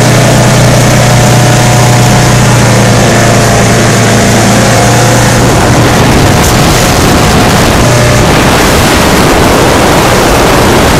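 Motorboat under way, its engine running steadily as a low hum beneath a loud, constant rush of wind and water.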